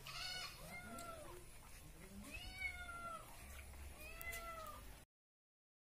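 Cat meowing repeatedly, about four drawn-out meows that rise and fall in pitch. The sound stops abruptly about five seconds in.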